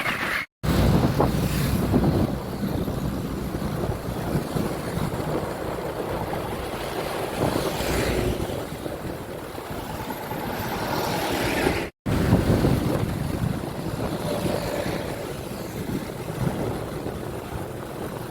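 Heavy machinery engines running at road-repair works, with wind buffeting the microphone; the sound cuts out abruptly twice, about half a second in and about twelve seconds in.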